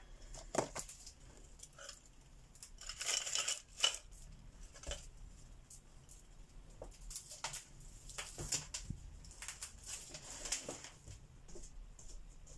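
Hand coloring on paper: short scratchy strokes of a coloring tool, with a few sharp clicks and knocks as tools are picked up and set down.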